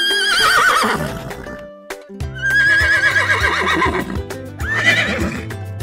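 A horse neighing twice: long, wavering whinnies that fall in pitch, a second or so apart, over background music.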